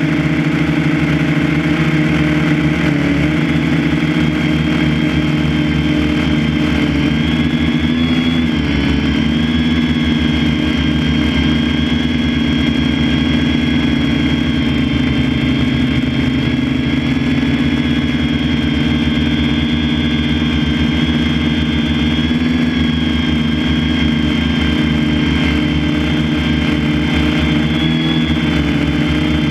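Heavy John Deere harvest machinery running steadily, its engine holding a constant speed with a thin high whine over the engine note.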